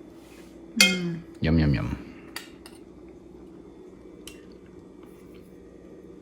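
Cutlery and oyster shells clattering against a plate: two loud ringing clinks about a second in, followed by a few light clicks.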